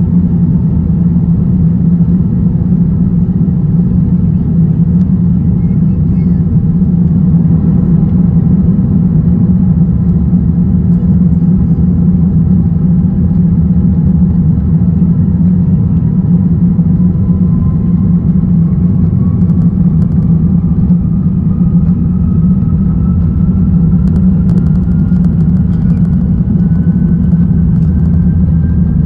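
Cabin noise of an Airbus A380-841 taxiing: a loud, steady low rumble from its Rolls-Royce Trent 970 engines and the airframe. A faint engine whine slowly rises in pitch throughout.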